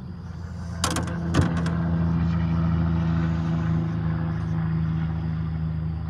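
A motor running with a steady low drone that builds over the first two seconds and then holds, with two sharp clicks about a second in.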